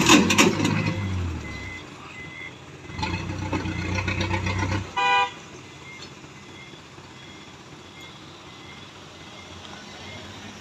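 Vehicles passing on the road, engines loud in the first two seconds and again from about three to five seconds in, followed by a short horn toot. Faint regular high beeps run underneath.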